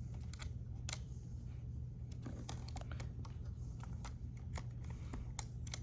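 Scattered small clicks and scratchy handling noises of fingers and tools working at the cable connectors inside an opened laptop, one click a little stronger about a second in, over a steady low hum.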